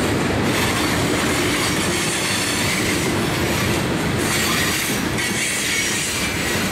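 Freight train of coal hopper cars rolling past: a steady rumble and clatter of steel wheels on the rails, with some wheel squeal.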